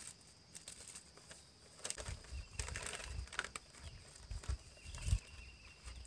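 Faint outdoor rustling and light clicks, with low rumbles from about two seconds in until shortly after five.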